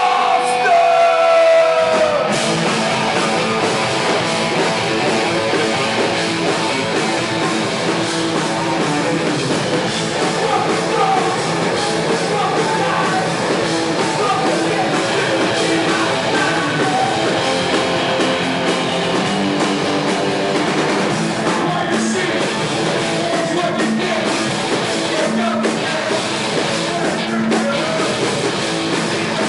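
Live heavy rock band playing loud: held, sliding electric guitar notes, then the full band of distorted guitars, bass and drums crashing in about two seconds in and playing on without a break.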